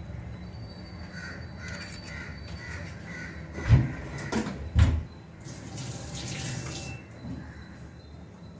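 Crows cawing faintly, then two dull thumps about a second apart, then a tap running for about a second and a half.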